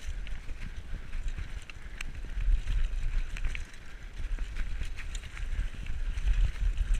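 Diamondback Recoil 29er mountain bike being ridden over a bumpy grass-and-dirt trail: wind buffeting the camera microphone in a steady low rumble, with tyre noise and scattered clicks and rattles from the bike over the bumps.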